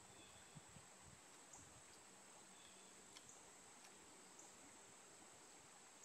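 Near silence: faint outdoor ambience by a slow, calm creek, with a steady faint high-pitched drone and a few soft ticks.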